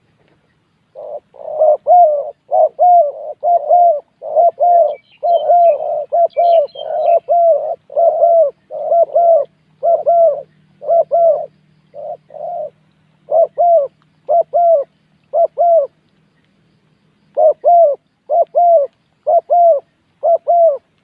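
Spotted dove cooing loudly in repeated runs of short coos, about two a second, with brief pauses between runs. A faint twittering from a smaller bird comes in briefly about five seconds in.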